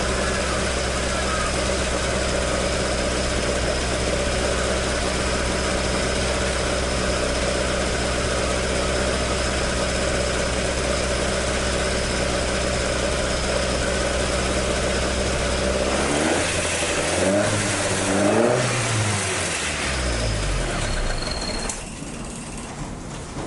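Toyota AE86's 4A-G four-cylinder engine idling steadily through its stock exhaust, with the exhaust leak repaired. About two-thirds of the way in it is revved a few times, pitch rising and falling, before settling and getting quieter near the end.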